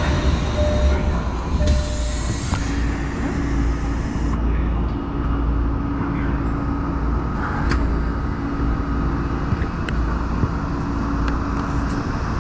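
Tokyo Metro Marunouchi Line subway train running: a steady low rumble of wheels on rail, joined after a couple of seconds by a steady motor hum.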